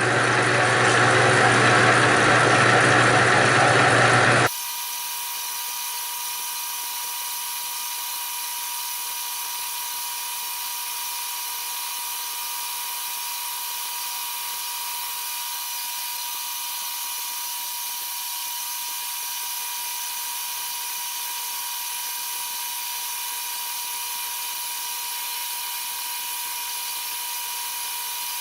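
Bridgeport vertical milling machine running, a sharp end mill cutting a taper into a mild steel gib block. The sound is loud and full for the first four or five seconds, then changes abruptly to a quieter, steady high-pitched whine with one constant tone.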